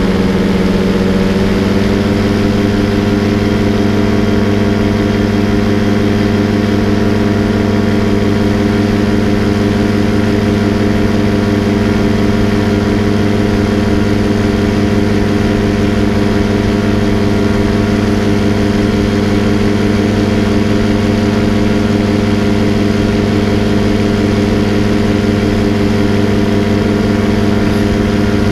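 Paramotor engine and propeller running in flight, its pitch rising a little over the first two seconds and then holding steady.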